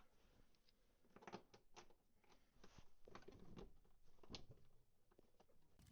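Faint, scattered light clicks and clatter of small bolts or fasteners being handled and fitted by hand, in short clusters with near silence between.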